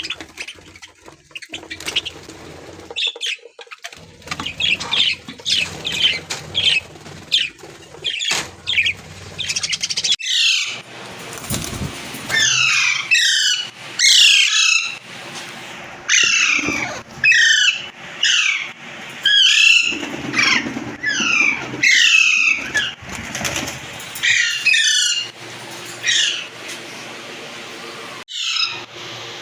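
A flock of budgies (budgerigars) chirping in an aviary. About a third of the way in, loud sharp calls that drop in pitch begin, repeating about once a second over the general chatter.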